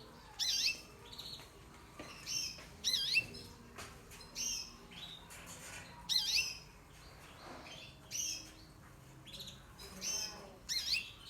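Caged canaries calling: short, high chirps with swooping notes, about one every second.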